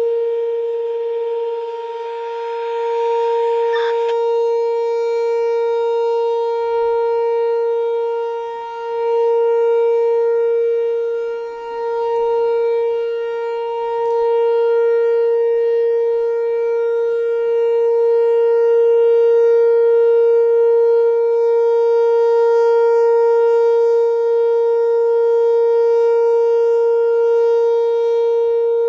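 Whelen WPS-4008 electronic outdoor warning siren sounding a steady, unwavering tone, its loudness swelling and dipping every few seconds. A brief hiss ends in a click about four seconds in.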